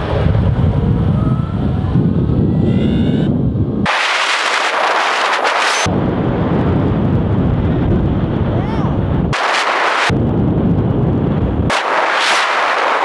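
Wind buffeting the microphone and road rush while riding an electric skateboard at speed. The noise switches abruptly several times between a deep rumble and a thinner hiss.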